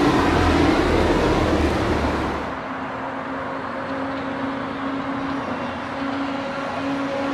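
Shanghai Transrapid maglev train moving, first with a loud low rumble and gliding whine alongside the platform, then, after a sudden change about two and a half seconds in, a quieter, duller hum with a steady low tone.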